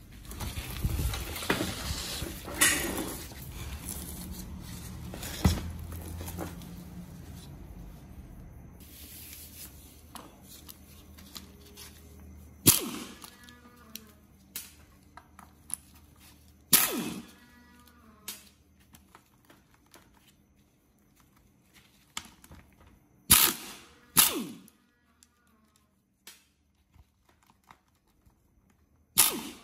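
A cordless power driver with a socket runs on the rusty gear-case cover bolts, undoing them. There is a longer run of tool noise with a low hum over the first several seconds, then several short loud bursts as the bolts are spun out. Faint background music plays underneath.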